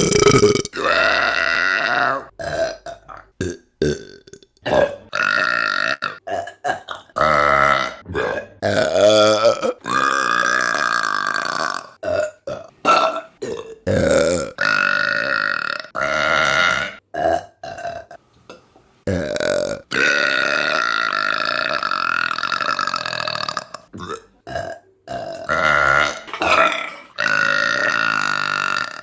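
A string of women's burps, one after another with short gaps: many short ones and a few long drawn-out ones lasting several seconds.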